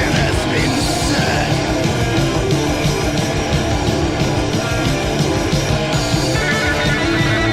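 Raw early-1980s heavy metal demo recording played from vinyl: distorted electric guitar, bass and drums playing loud and steady.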